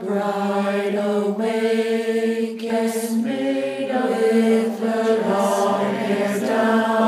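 Voices singing a slow chant in long held notes, the pitch shifting about once a second.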